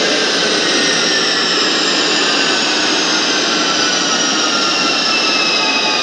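General Electric J79-11B turbojet running loud on a test stand, its roar carrying several whining tones that slide slowly down in pitch as the engine's speed comes down.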